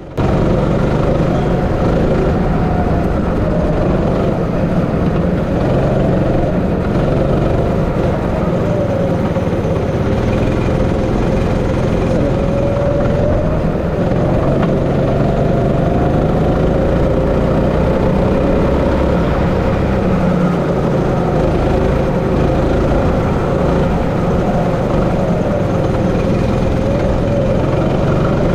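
A 16 bhp go-kart engine running hard, heard from the driver's seat, its pitch rising and falling with the throttle through the corners, over a steady rushing noise.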